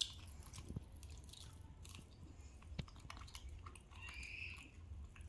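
Faint chewing and crunching of crispy fried green-rice (cốm) balls, with scattered small clicks.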